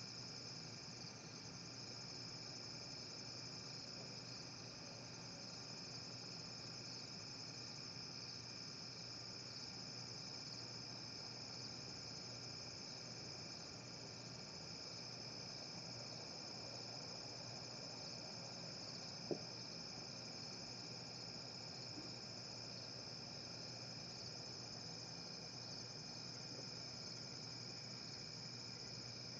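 Night insect chorus of crickets, a steady high chirring that does not let up. Under it runs a faint, steady low hum, and a single sharp click comes about nineteen seconds in.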